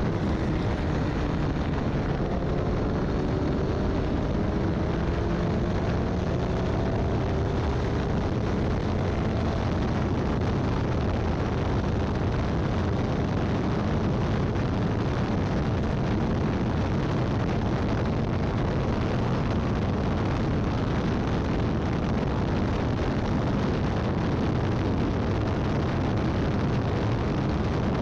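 Formula Ford race car running at speed, with a steady heavy rush of wind and road noise; the engine note climbs over the first several seconds, then stays buried in the roar.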